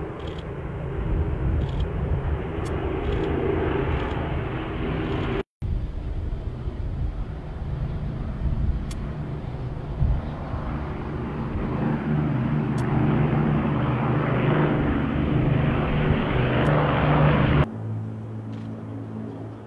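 Two Avro Lancaster bombers passing overhead, their four-engined Merlin V12 drone steady, with a brief gap in the sound about a quarter of the way through. The drone grows louder, then drops off abruptly near the end.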